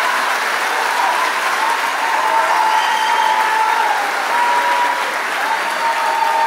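Theatre audience applauding steadily, with a few long held calls or whistles rising above the clapping.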